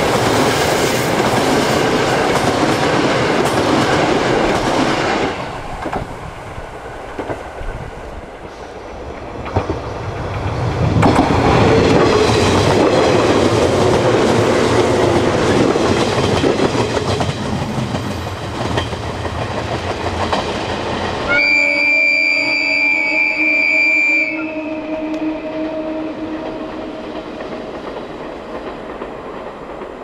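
Tango Explorer diesel express running close past with wheel clatter for about five seconds. Several seconds later a JR 113 series electric train rolls past with clickety-clack wheels. After that a train horn sounds for about three seconds, and its lower tones hang on briefly after the high note stops.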